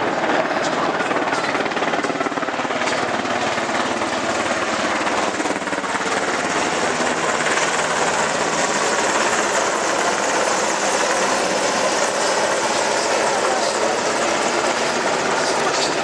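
Navy helicopters flying past overhead: steady rotor and turbine engine noise.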